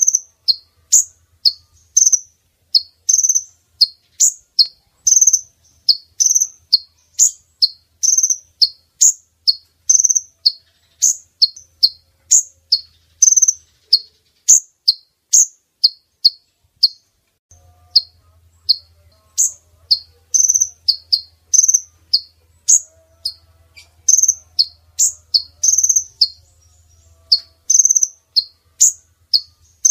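Female kolibri ninja sunbird call, short sharp high chirps repeated about twice a second with a brief pause partway through: a lure call meant to draw in males.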